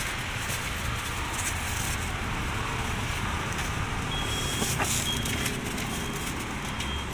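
Steady road traffic noise, with a few light clicks from plastic food tubs being handled.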